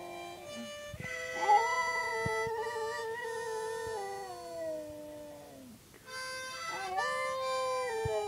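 A dog howling along to a harmonica. One long wavering howl slides down in pitch toward its end, and a second howl begins near the end, over held harmonica chords.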